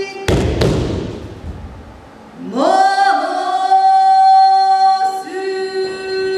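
Long, held chanted tones, each rising into its pitch before holding, with two heavy drum strikes ringing out just after the start.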